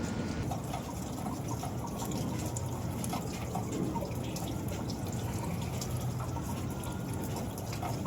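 Hail coming down: a steady wash of water with scattered sharp ticks of hailstones striking hard surfaces.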